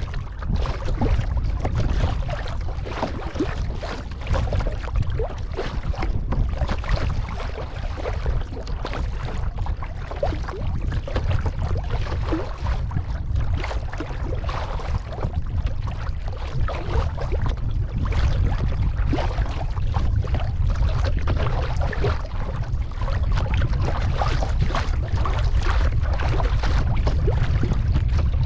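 Kayak being paddled on open water: paddle blades splashing and water washing against the hull in an irregular spatter, over a steady low rumble of wind on the microphone.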